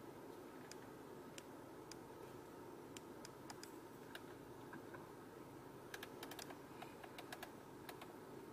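Faint, irregular clicks from working the Genesis GV80's infotainment controls, in a quick cluster about six to seven and a half seconds in, over a low steady hum.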